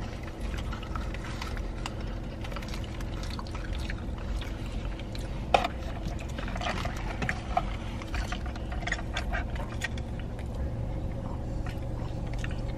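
Steady low hum inside a car cabin, with scattered small clicks, crinkles and chewing as french fries are handled and eaten, and one sharp tap about five and a half seconds in.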